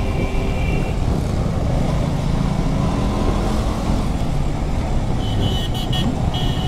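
Sport motorcycle engine running at a steady cruise, at about 50 km/h, with wind rush and surrounding city traffic. A high-pitched vehicle horn beeps a few times near the end.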